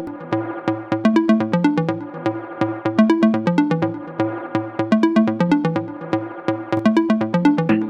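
Electronic background music with a steady beat and a repeating bass-note pattern.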